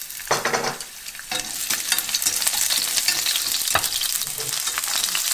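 Sliced garlic frying in hot cooking oil in a nonstick frying pan, sizzling steadily once it gets going about a second in, while wooden chopsticks stir it with scattered sharp clicks against the pan.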